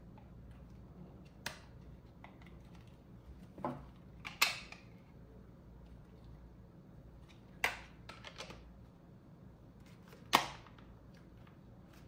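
Hard plastic clicks and knocks as a cordless handheld vacuum's filter and clear dust cup are handled and fitted back onto the motor body. A handful of sharp single clicks a few seconds apart, the loudest near the end; the motor is not running.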